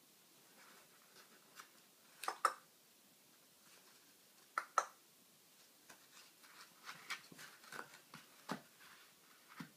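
Toy poodle puppy chewing and batting an empty cardboard toilet roll tube: faint scattered crinkles and scratches, with two sharper pairs of clicks about two and a half and four and a half seconds in, then a run of small quick ticks and rustles.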